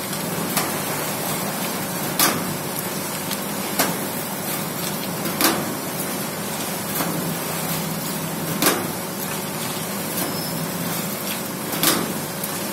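Automatic double-die paper dona and plate making machine running: a steady mechanical hum with a sharp knock about every second and a half as the dies press and punch plates out of the foil-laminated paper strip.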